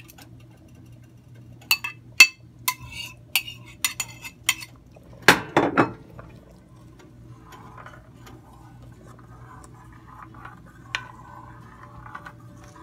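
Metal spoon clinking and scraping against a ceramic bowl while ground pork is scraped out into a pot, a quick series of sharp clinks followed by a louder knock about five seconds in. Faint scraping and stirring follow.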